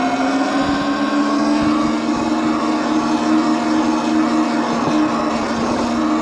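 Electric motor of an e-bike whining steadily under way, with wind and tyre noise.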